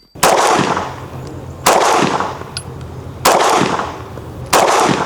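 Fusion Firearms XP-Pro pistol fired four times at a slow, even pace, about one and a half seconds between shots. Each shot has a long echoing tail.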